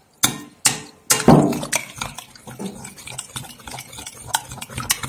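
A spoon stirring thick yogurt, thinned with a little water, in a glass bowl, knocking and scraping against the glass. There are a few sharp clinks in the first second or so, the loudest just after a second in, then quicker, lighter clicks and scrapes.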